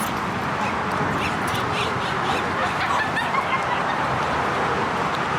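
Steady outdoor noise, with a few short bird chirps over the first few seconds.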